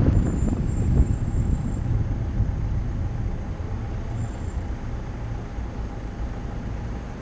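A car driving slowly along a city street, heard from the car itself: a low rumble of engine and tyres, with a bump at the start and another about a second in, growing gradually quieter.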